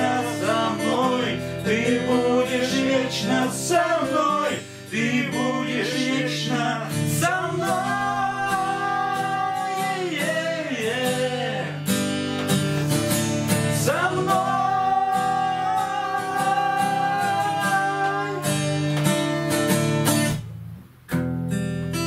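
Acoustic guitar strummed and picked, with a voice singing long, drawn-out notes over it without clear words. The playing drops out briefly about three-quarters of a second before the end, then the guitar comes back in.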